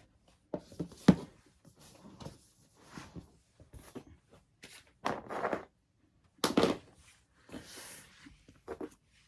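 Cardboard and plastic packaging being handled by hand: a sharp knock about a second in, then a string of short rustles and scrapes, the loudest two in the second half.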